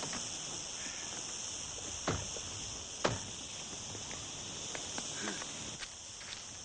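Insects chirring steadily in a high-pitched chorus, with two short sharp knocks about two and three seconds in.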